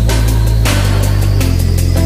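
Loud electronic background music with a heavy bass line that changes note about every 0.7 s over a steady drum beat.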